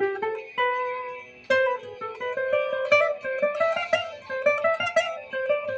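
Classical guitar played fingerstyle: a rising run ends on a held note about half a second in, and a melody of quickly plucked notes starts again about one and a half seconds in.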